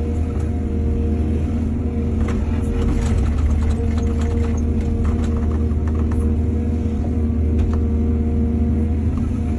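Heavy diesel engine of an excavator running steadily under load, with scattered sharp clanks and rattles through the middle, typical of the bucket working soil and stones into a truck bed.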